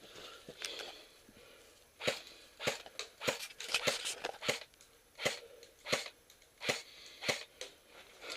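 Footsteps crunching on the ground at an even walking or jogging pace, about one and a half steps a second, starting about two seconds in.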